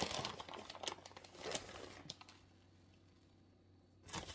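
Plastic bag of shredded cheddar rustling as cheese is shaken out onto the mixture, with irregular crackles for about the first two seconds. It goes nearly quiet, then the rustling starts again just before the end.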